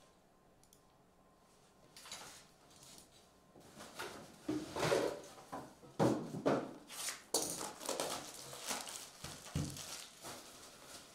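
Shrink-wrapped trading-card hobby box being unwrapped: a box cutter slits the cellophane and the plastic film tears and crinkles in a series of scratchy swishes, starting about two seconds in.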